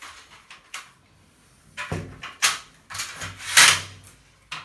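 Metal sliding-door guide rails scraping and rubbing against each other as they are pulled apart by hand, in several short scrapes starting about two seconds in.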